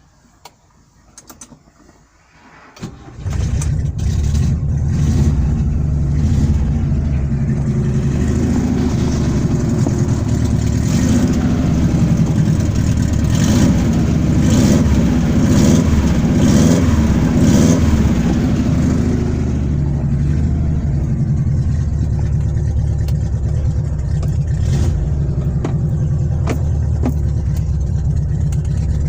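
ZAZ-968 Zaporozhets' air-cooled V4 engine starting about three seconds in after a few clicks. It runs with some revving for about ten seconds, then settles back to a steady idle.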